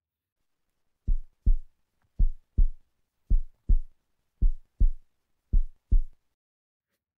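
Heartbeat sound effect: five double beats (lub-dub), deep and evenly spaced at about one beat per second, starting about a second in.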